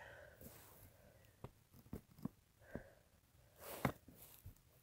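Faint handling sounds of cordage being wrapped and pulled tight around an aspen pole: scattered soft ticks and rustles, the loudest a little before four seconds in.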